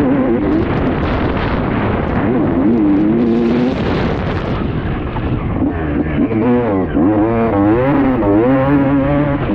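Motocross motorcycle engines revving hard, the pitch rising and falling again and again with the throttle.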